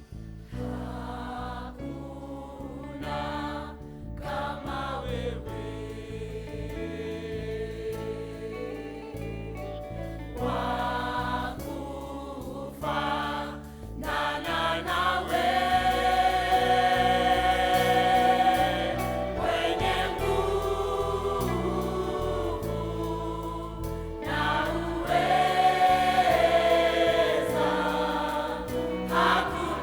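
Gospel worship song: a group of voices singing with instrumental backing, growing louder about halfway through.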